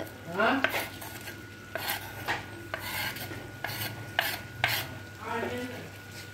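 A metal spoon scraping chopped onions, tomatoes and green chilies off a wooden chopping board into a wok of frying chicken: a run of short sharp scrapes and knocks, with sizzling from the pan underneath.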